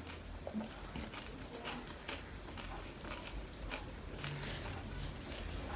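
A person chewing crunchy snack food close to the microphone, with scattered small crunches and wet mouth sounds.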